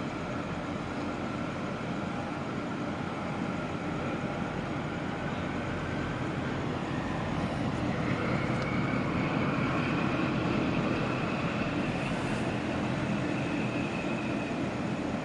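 Steady low rumble of the container ship CMA CGM Pelleas's machinery as it passes close by, with a faint whine that steps up in pitch about halfway through as the rumble grows slightly louder.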